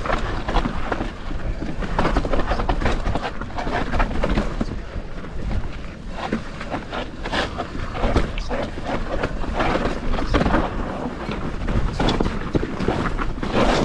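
Evil Insurgent mountain bike riding down a loose dirt trail: tyres rolling over loose ground while the bike clatters and rattles over bumps in quick, irregular knocks.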